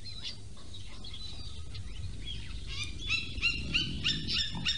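Veldt sound effect: a steady low rumble, with the growling of lions fighting over their kill, and from about three seconds in a bird's quick run of short chirps, each sliding down in pitch.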